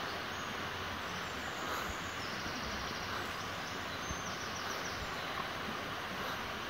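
Shallow, rocky river flowing: a steady, even rush of water.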